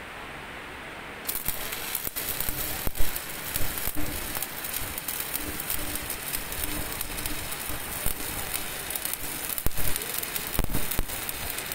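Stick (shielded metal arc) welding on carbon steel with a 7018 electrode: the arc strikes about a second in and then crackles steadily, with irregular sharp pops.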